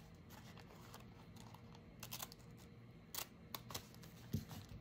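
Scissors snipping coffee-filter paper, heard as a few faint, sharp clicks, mostly in the second half.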